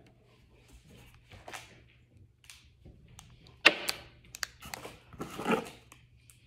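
Plastic snack packages and other items handled and moved about in a cardboard shipping box: scattered rustles and light knocks, with two louder handling noises at about three and a half and five and a half seconds in.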